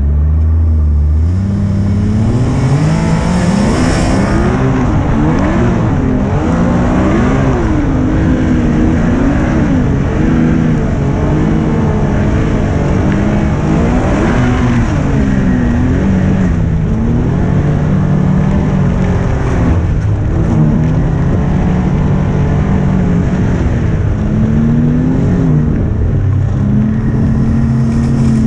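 Snowmobile engine running under way, its pitch rising and falling again and again as the throttle is worked, heard close up from the rider's seat.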